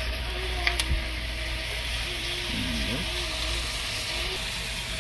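Steak slices, onions and bell peppers sizzling steadily in a hot cast iron skillet, with a couple of sharp clicks of a metal spatula against the pan a little under a second in.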